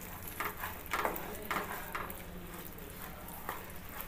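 Spatula scraping and stirring through a sticky mixture of grated ash gourd and melted sugar in a non-stick pan, a few short scrapes over a low sizzle.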